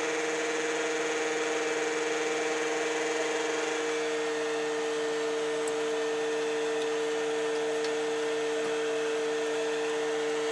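A steady machine whir with a constant two-tone hum, running evenly without change.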